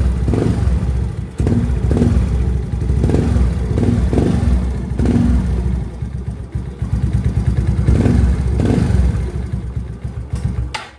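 Yamaha Mio Soulty scooter with a stock engine running through an aftermarket chicken-pipe exhaust (Pipe Organ Sport V5): a loud, low exhaust note with the throttle blipped again and again, the pitch rising and falling about once a second. The sound cuts off suddenly near the end.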